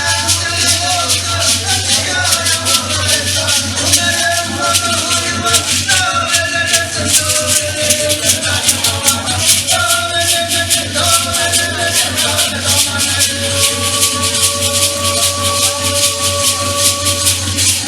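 Music with a fast, steady rattling percussion rhythm under a melody line that moves between held notes.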